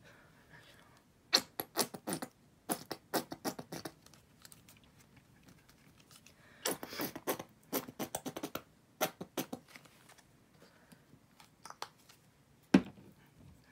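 Plastic squeeze bottle of acrylic craft paint being shaken and squeezed to spatter paint, giving quick runs of clicks and taps, with one louder knock near the end.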